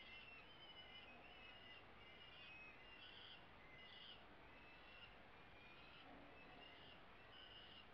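Peregrine falcon chicks giving faint, high, repeated food-begging calls, several a second, while being fed in the nest.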